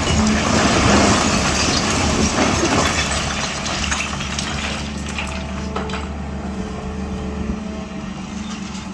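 Large excavator's diesel engine running steadily, with a loud, rough rush of noise over the first three seconds that then eases off.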